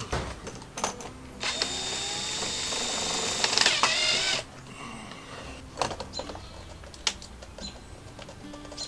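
Cordless drill driving a mounting screw into wooden trim. It starts about a second and a half in, runs steadily with a whine for about three seconds, then stops. A few clicks and taps follow as the screw and bracket are handled.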